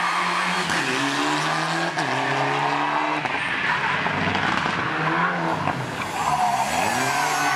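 Rally car engines revving hard, the pitch climbing and dropping in steps with gear changes, with tyres squealing as the cars slide through corners near the start and again near the end.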